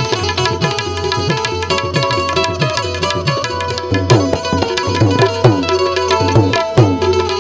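Instrumental devotional music: tabla playing a steady rhythm under sustained melody notes, with several drum strokes sliding down in pitch from about four seconds in.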